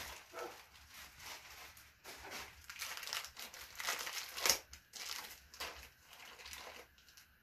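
Thin plastic packaging crinkling as hands handle and work at a small plastic bag of toilet-seat mounting hardware, in irregular rustles with a louder crinkle about four and a half seconds in.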